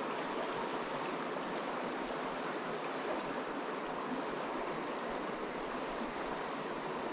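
Small trout stream flowing over riffles: a steady, even rush of water.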